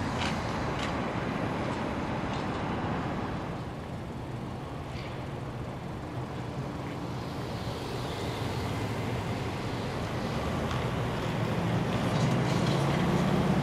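City street traffic with buses driving past. Near the end it grows louder, with a steady low hum, as an electric trolley bus passes close.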